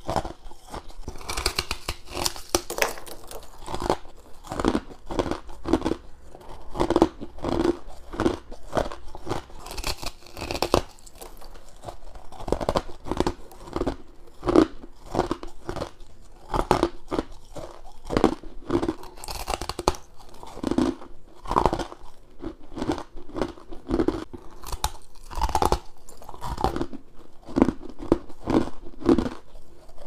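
A person biting and chewing chunks of powdery humidifier frost ice, picked up close by a clip-on microphone: a dense, irregular run of crisp crunches, with a few sharper, brighter bites every several seconds.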